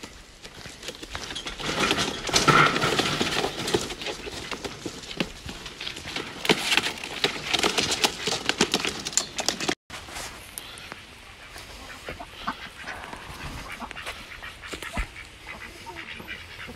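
Ducks quacking while being carried in a wire crate, over a lot of clattering and crunching handling noise. After about ten seconds it turns to quieter quacking from ducks in a pen.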